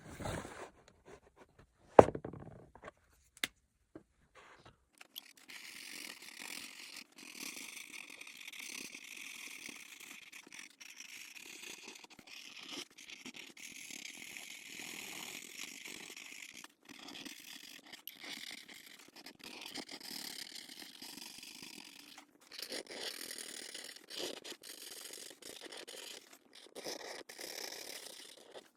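A coloring tool scratching back and forth on paper in quick, steady strokes, stopping briefly now and then. A few sharp clicks come first, the loudest about two seconds in.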